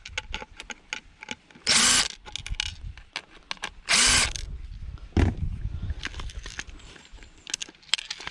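A power drill whirring in two short bursts, about two seconds apart, as parts are taken off, among clicks and knocks of metal and circuit-board parts being handled, with a thump a little after five seconds.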